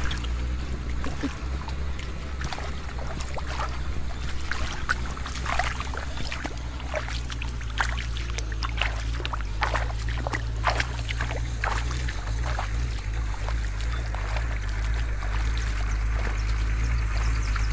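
Water splashing and sloshing in short irregular bursts over a steady low hum, as hands work through shallow water while fishing.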